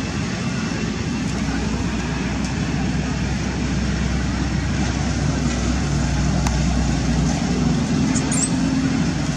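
Steady road-traffic noise: an even hiss with a low rumble that swells from about three to seven seconds in, as a vehicle passes.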